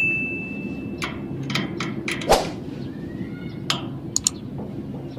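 Sharp metallic clicks and knocks of a wrench working the rocker-arm adjusting screws on the open cylinder head of a Honda TMX155 pushrod engine, reducing the valve clearance; a thin metallic ring dies away about a second in. A steady low hum runs underneath.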